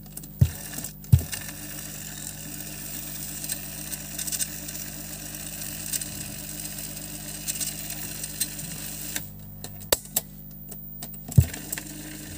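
Bare cassette deck mechanism rewinding a cassette: a steady whir of the motor and spinning spools for about eight seconds, which then stops. Sharp clicks of the deck's levers come near the start, and two more come after the whir has stopped. A steady low hum runs underneath.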